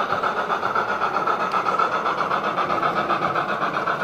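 Gauge 1 model of a DB class 80 steam tank locomotive running at full speed with its coaches: a steady running sound with a fast, even pulsing.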